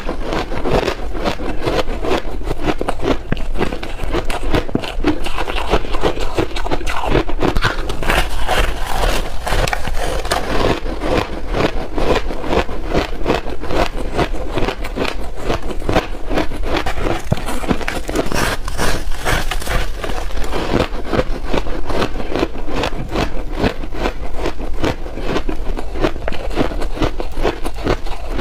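Close-miked chewing of powdery refrozen ice: a continuous run of rapid crisp crunches.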